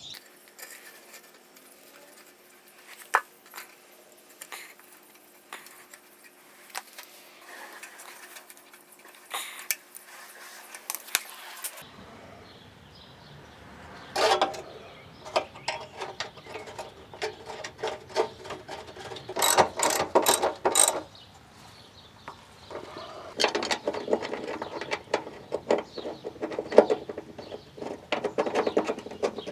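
Hand-tool clicks and knocks, then bursts of rapid ratcheting clicks, heard three times from about halfway through.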